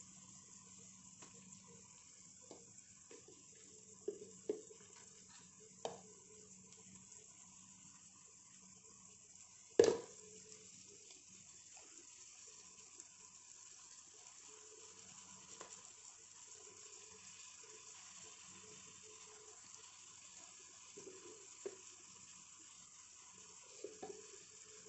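Onions and green chillies frying in a pot, giving a faint steady sizzle, with a few short knocks of a spoon against the pot as spices are added, one much louder than the rest about ten seconds in.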